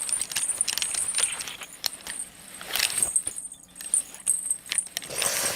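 Small metal pieces clinking and jingling, a run of sharp irregular clicks over a faint high ringing, as if shaken or tossed together.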